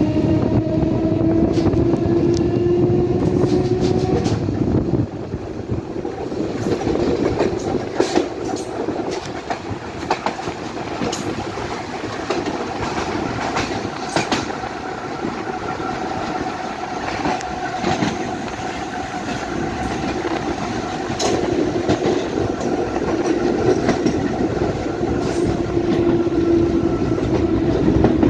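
HÉV suburban electric train running, heard from an open window. Its motor whine rises in pitch for the first few seconds and cuts out about five seconds in, leaving a steadier rumble. Wheels click now and then over rail joints, and a fainter whine returns near the end.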